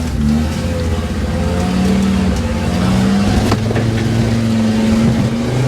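Land Rover Discovery's engine labouring under load as the 4x4 struggles over rough off-road ground, with a sharp knock about halfway through.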